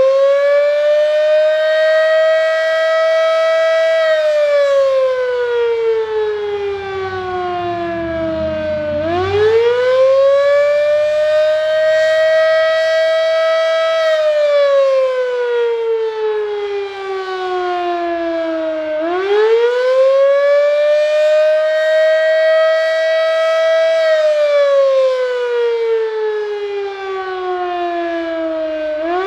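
Darley 3V8 fire siren wailing in a test. Its pitch climbs for about three seconds, holds briefly at the top, then slides slowly down for about five seconds, and the cycle repeats about every ten seconds.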